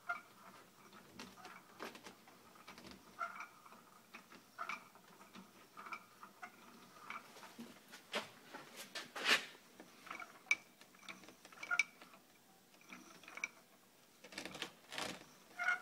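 Homemade automaton mechanism turning: a shaft and wheel under the base make faint irregular clicks and short squeaks that recur about once a second, with a busier run of clicks partway through and again near the end.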